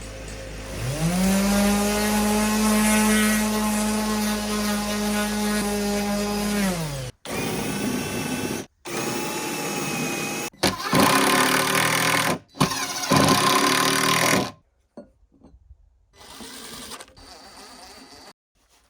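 Electric power tool working wood: it spins up to a steady whine, runs for several seconds and winds down. This is followed by a string of short, abruptly cut bursts of the tool running, then quieter scattered knocks near the end.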